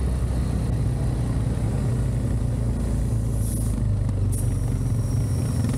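Engine of an off-road vehicle running steadily, a continuous low rumble with no change in pitch.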